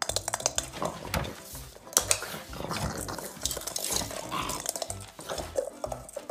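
A pug making noises as it scuffles after a small toy, mixed with many quick sharp clicks and clatters.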